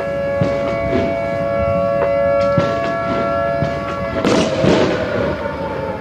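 Federal Signal 2T22 dual-tone outdoor warning siren sounding the attack signal. It holds a steady two-note chord, then falls in pitch about four seconds in, with an echoing neighbourhood reverb applied by convolution. Firework bangs and crackling sound over it, loudest as a dense burst of crackle about four seconds in.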